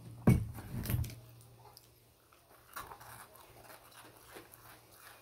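Two short thumps in the first second, then faint scattered crackling and tearing as the charred skin of grilled banana is picked apart on a plastic plate.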